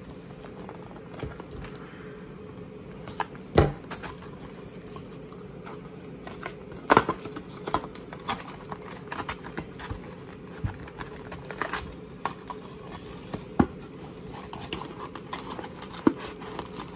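A cardboard hockey-card hobby box being handled and opened by hand: crinkling and tearing of its wrapping with scattered sharp knocks and taps of cardboard, the loudest about three and a half and seven seconds in. A faint steady hum runs underneath.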